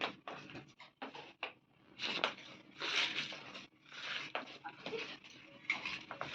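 A puppy moving about close by, with irregular short rustling and puffing noises.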